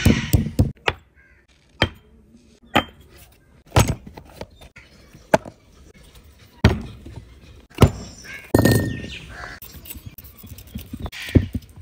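The last few strikes of a stone pestle pounding in a marble mortar, then single knocks and clunks of kitchen tools set against a wooden table every second or two, with a longer scraping stretch about nine seconds in.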